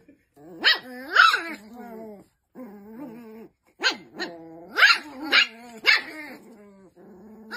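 Two small dogs, a Shiba Inu puppy and a fluffy white dog, play-fighting, yapping with about six sharp high barks between drawn-out whiny growling calls.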